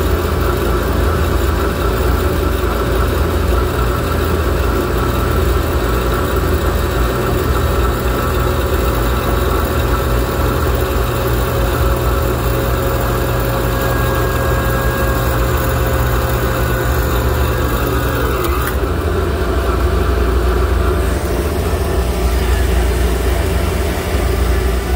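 J2Fab Cobra high-output alternator spinning on a test bench and charging through its external regulator, with a steady hum from the bench drive and a whine. About 18 seconds in, a higher whine slides down in pitch and drops away while the steady running carries on.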